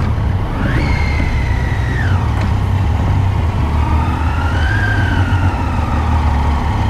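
Triumph Street Triple R motorcycle riding along, its engine whine rising, holding and falling twice as the revs change, over a steady low rumble.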